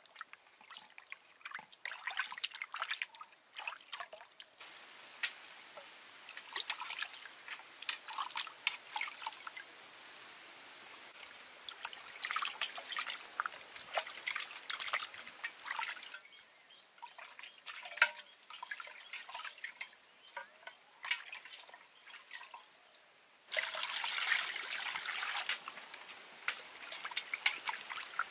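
Water splashing, trickling and dripping in a metal pot as hands wash food in it, in several stretches that change abruptly.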